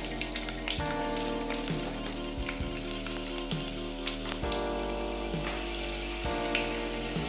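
Mustard seeds, cumin, dried fenugreek and garlic sizzling and crackling in hot oil for a tempering, with many small pops.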